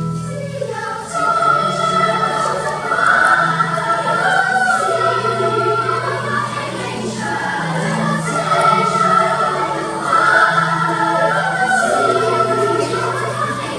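Children's choir singing in parts over sustained low bass notes from an accompaniment.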